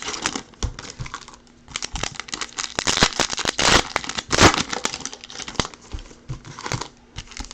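Foil trading-card pack wrappers crinkling and tearing as packs are ripped open, in irregular crackly bursts, the loudest about three to four and a half seconds in.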